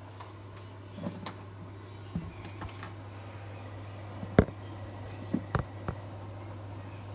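Handling noise from a camera being moved and set down in a new position: scattered clicks and knocks, the sharpest about halfway through, over a steady low hum.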